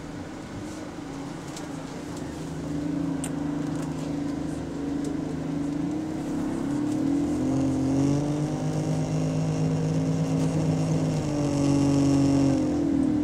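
Go-Ahead London bus EH179's engine and drive heard from inside the saloon, pulling away. Steady low tones with a whine that rises in pitch from about halfway through, growing louder.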